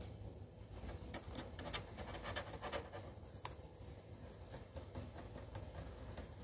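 Faint, irregular light clicks and scratches against a hamster cage's plastic tube, thickest in the first half, with one sharper click about three and a half seconds in.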